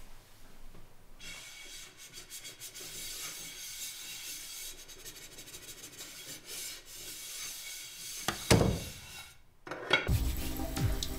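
Film sound design: a hissing, scratchy rubbing texture builds, then a loud falling whoosh about eight seconds in, a brief drop-out, and music with low booms coming in near the end.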